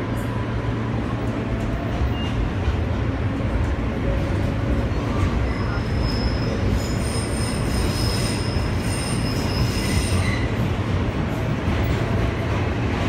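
R143 subway car heard from inside while running between stations: a steady rumble of wheels on rail. From about halfway through, a high-pitched wheel squeal lasts around five seconds and then fades.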